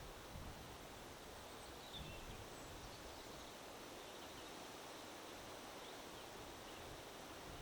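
Steady wind noise with a rustle of leaves, and a few faint, short bird chirps scattered through it.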